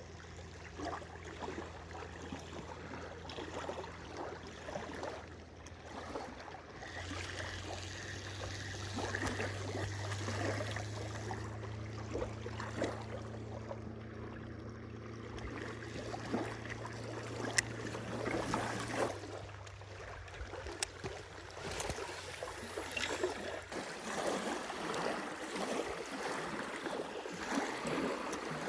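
Water lapping and splashing lightly against a small boat, over a steady low hum that grows louder about a quarter of the way in, eases off past the middle and stops well before the end.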